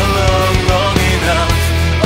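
Rock music playing, with a heavy sustained bass line and pitched parts that bend in pitch.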